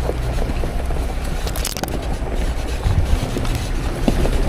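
Jeep driving slowly over a rough dirt trail, heard from inside the cabin: a steady low rumble of engine and tyres with small rattles, and a sharp knock or scrape about a second and a half in.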